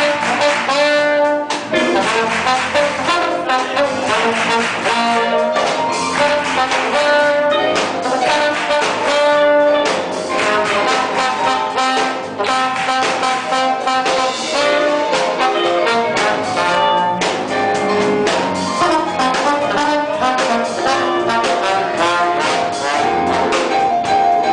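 A church orchestra playing an instrumental piece, with brass, trumpets and trombones, carrying the melody in sustained, moving notes.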